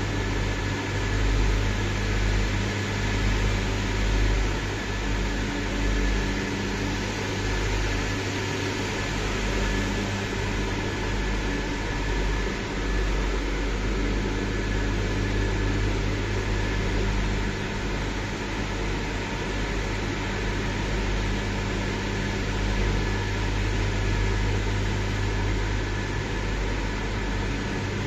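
Steady drone of electric fans moving air, a low hum under an even hiss with a faint high steady whine.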